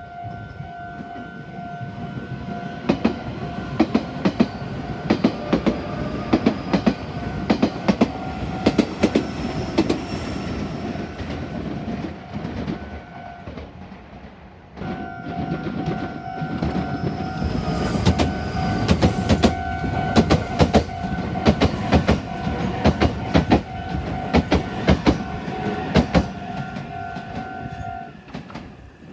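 Meitetsu trains passing over a small level crossing, wheels clacking rhythmically over the rail joints above a steady rumble, while the crossing's warning signal keeps sounding its steady electronic tone. The clatter drops off suddenly about halfway through and then starts again with another passage.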